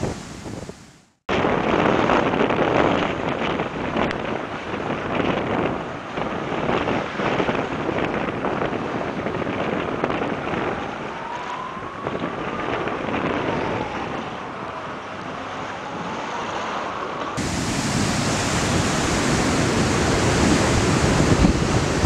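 Storm waves breaking and rough sea churning, with gusty wind buffeting the microphone. The sound drops out for about a second near the start, and a few seconds before the end the wind noise turns harsher and hissier.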